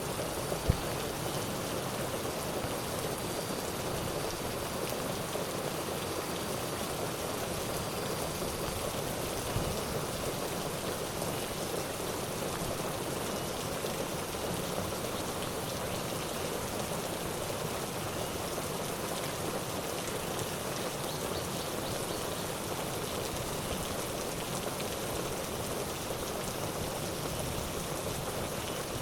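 Steady rain falling, an even hiss with two short louder ticks, one about a second in and one near ten seconds.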